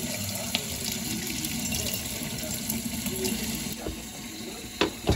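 Kitchen faucet running, its stream splashing over a blanched beef bone held under it above a stainless steel sink; the flow stops a little past three and a half seconds in. Near the end come two sharp knocks as bones are handled in a steel bowl.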